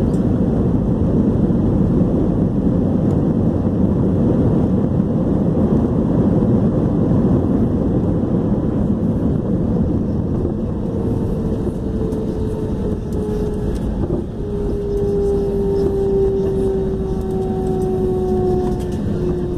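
Airbus A321 jet engines after landing: a loud, deep rumble, then from about halfway a steady whine that slowly falls in pitch as the engines wind down.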